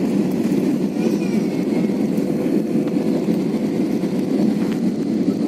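Steady low rumble of a moving vehicle with a constant hum running through it.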